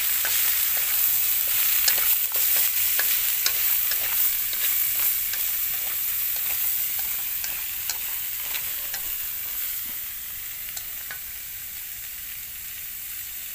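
Chopped frog pieces sizzling in hot garlic oil in a metal wok, stirred with chopsticks that click and scrape against the pan. The sizzle gradually dies down, and the clicks stop near the end.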